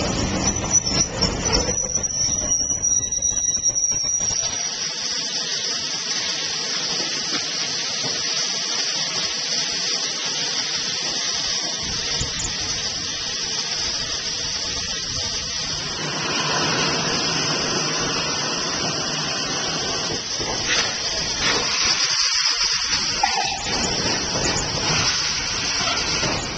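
Steam hissing steadily from Southern Railway Lord Nelson class 4-6-0 locomotive No. 850. The hiss grows fuller and louder from about two-thirds of the way through.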